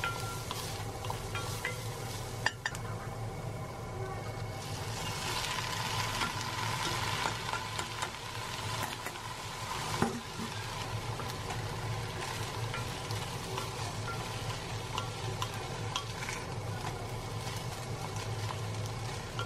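Chopped onion and soaked rice sizzling in a cast-iron Staub cocotte as a wooden spatula stirs them. The sizzle grows louder about five seconds in, with a couple of sharp knocks of the spatula against the pot and a low steady hum underneath.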